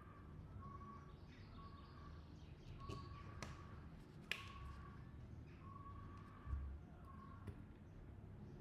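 Faint short beeps on one steady pitch, repeating about once a second, with a few sharp clicks or taps, the loudest about four seconds in.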